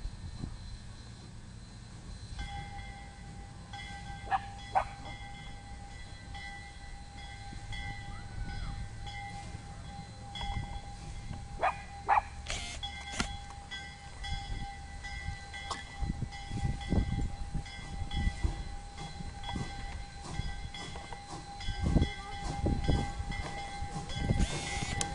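Flagg Coal 75, a small saddle-tank steam locomotive, moves slowly past with an open excursion car. A steady high whine sets in a couple of seconds in and holds throughout, with a few sharp clanks. Low rumbling from the running gear grows louder in the second half, and a burst of steam hiss comes near the end.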